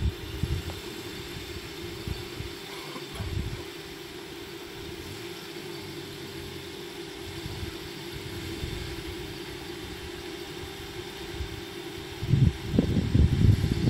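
A vehicle engine idling with a steady hum. Loud, low rumbling bursts come in near the end.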